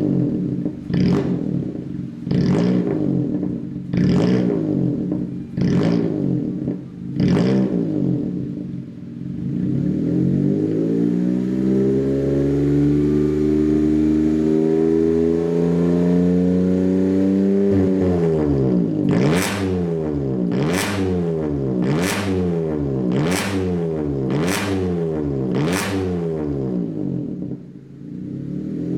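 Honda N-BOX Custom (JF1) naturally aspirated 660 cc three-cylinder engine breathing through a full straight-through exhaust with no silencer, loud and deep, being revved. It gives five quick blips, then a slow climb in revs that is held for several seconds, then six more quick blips about a second and a half apart, and drops back down near the end.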